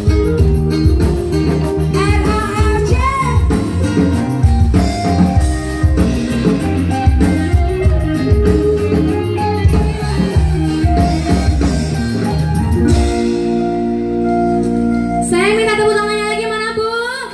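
A live dangdut band plays with electric guitars, bass and drums, and a woman sings. About two-thirds of the way through, the beat drops out, leaving held chords, and a sung line closes the song near the end.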